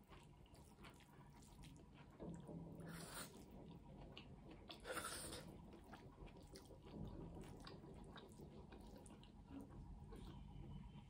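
Faint, wet squishing and mouth sounds as a hand mixes rice with dal and the food is chewed, with small clicks throughout and two louder wet smacks about three and five seconds in.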